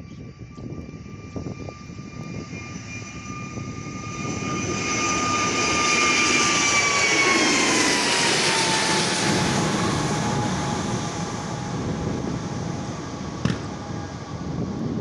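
Airbus A320neo jet engines at takeoff thrust as the airliner passes, swelling to a peak and then easing off. A high engine whine drops in pitch as the plane goes by. There is a single sharp click near the end.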